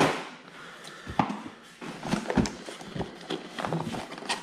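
Cardboard boxes and packaging being handled and opened by hand, giving irregular taps, knocks and scuffs of cardboard.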